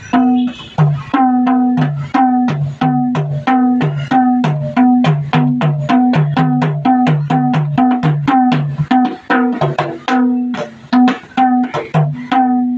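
Madal, the Nepali double-headed hand drum, played in a quick steady rhythm of about four to five strokes a second, alternating ringing strikes on its higher head with lower bass strokes.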